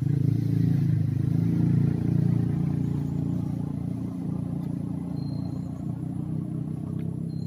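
Low engine rumble of a passing road vehicle, loudest in the first couple of seconds and slowly fading away.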